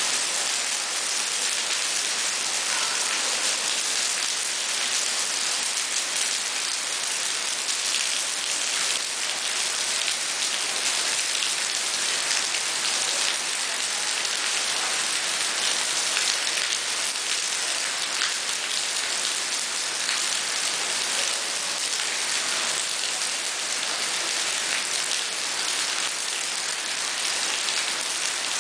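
Steady rain falling on wet paving and lawn: a dense, even patter of drops that holds at the same level throughout.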